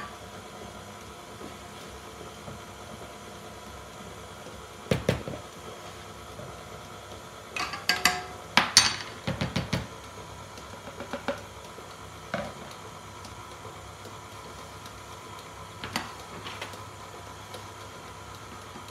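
Metal spoon knocking and clinking against mixing bowls as flour is added to a stand mixer, with a cluster of clatters about eight to ten seconds in and a few single knocks after. The stand mixer runs on slow speed underneath as a low steady hum.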